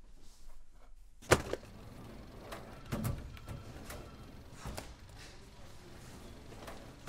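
Sheets of paper being handled and leafed through on a desk, with rustling and several knocks. A sharp, loud knock comes about a second in, and softer thuds follow near three seconds, near five seconds and at the end.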